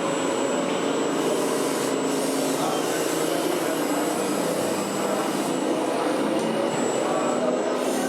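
Remote-control model trucks running steadily, a continuous mechanical hum and whine with a few steady tones held throughout.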